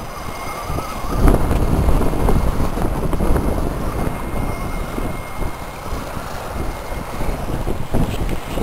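Heavy wind rumbling on the microphone, over the faint whine of a scale RC rock crawler's electric drive as it climbs over rock, with scattered small clicks from the tyres and chassis on the stone.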